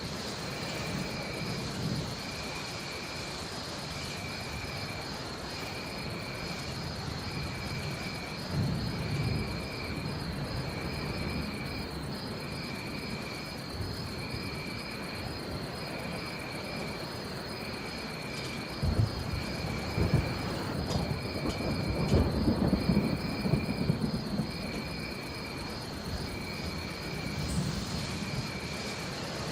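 Steady rain with a jungle chorus: a continuous high insect buzz and a short chirping call repeated about once a second. Thunder rumbles low, briefly a third of the way in and longer in the second half.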